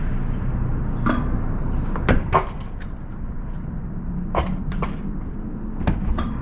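Steady low wind rumble on the microphone, with about seven sharp, irregular taps, some in pairs, from birds pecking at a feeder dish.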